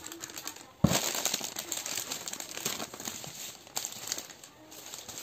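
Clear plastic packaging bags crinkling and rustling as they are pulled out and handled, with a sudden loud crackle a little under a second in.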